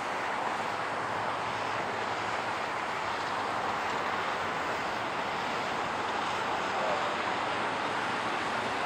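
Boeing 767-300 airliner's twin jet engines giving a steady, even roar as the jet rolls out down the runway just after touchdown.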